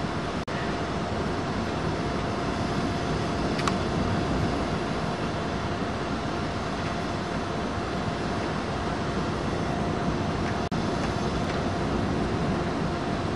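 A 2TE116 diesel locomotive's 16-cylinder diesel engine running close by: a steady, even din with a constant tone running through it.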